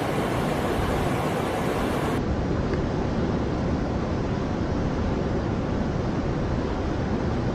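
Steady rushing of whitewater rapids pouring over rocks, a constant hiss-and-roar of churning water that turns slightly duller about two seconds in.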